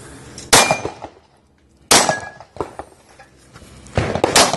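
Pistol shots fired at steel plate targets, each a sharp crack with the plates ringing after some hits. The first two shots come over a second apart, then two follow in quick succession near the end.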